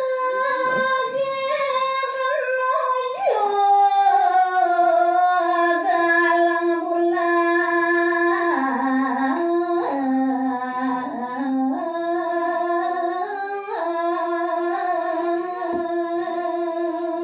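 A woman sings a Balinese geguritan verse to a pupuh Sinom melody, solo and unaccompanied. She holds long, ornamented notes that slide and step between pitches.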